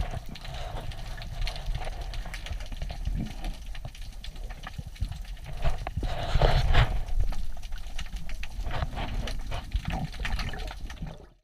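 Underwater sound through an action camera's housing: water rushing with scattered clicks and crackles, louder and busier about six seconds in as a gloved hand scrapes through the gravel of the sea floor.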